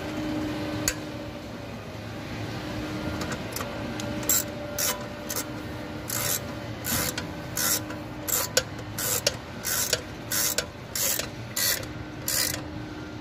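Manual chain block (chain hoist) worked by hand, its chain and ratchet mechanism making a run of short rasping clicks, about two a second, starting a few seconds in.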